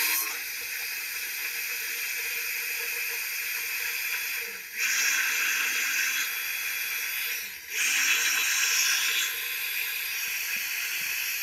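Ninja countertop blender running at high speed, blending a blueberry, banana and milk smoothie. The motor noise dips briefly twice, about four and a half and seven and a half seconds in, and comes back louder each time.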